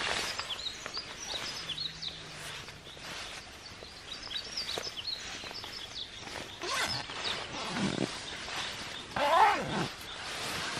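Nylon sleeping bags rustling and crinkling as they are handled and stuffed, with small birds chirping in the background. Near the end there is a short, loud sound that rises and falls in pitch.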